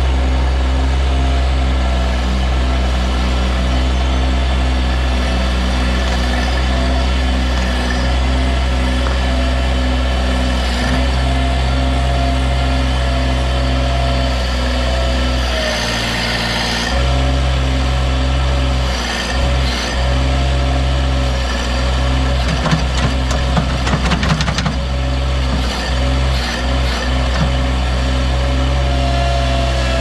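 Mini excavator's diesel engine running steadily with a hydraulic whine, its note dipping briefly about halfway through as the arm works under load. Between about 22 and 25 seconds a run of knocks and rattles, dirt and rocks being tipped from the bucket into a dump truck's bed.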